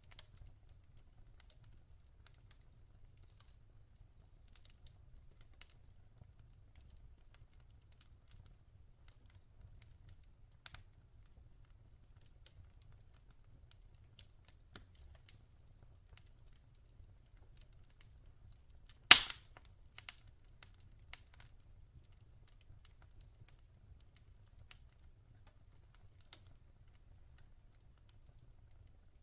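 Log fire crackling with sparse, scattered small clicks and one loud pop about two-thirds of the way through, over a faint low rumble.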